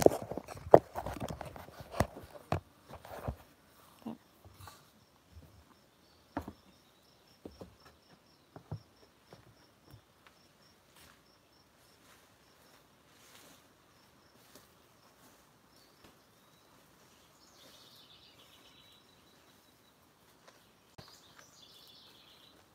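Knocks and rubbing as a phone is handled and set on a wooden deck railing, then a few fainter knocks of footsteps walking away. After that, a faint, even run of high ticks, about three a second, and two short patches of high chirping near the end, from a small outdoor insect or bird.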